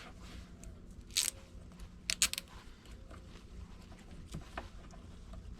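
A few short, sharp clicks and rattles of small hardware and a tool being handled while something is fastened: one about a second in, then a quick cluster of three just after two seconds. A faint low hum runs underneath.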